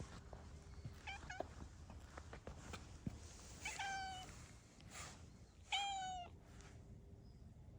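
Cat meowing: a short meow about a second in, then two longer, slightly falling meows, the last the loudest.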